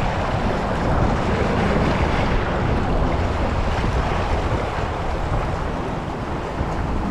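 Steady wind buffeting the microphone, a constant rushing rumble, over the wash of water.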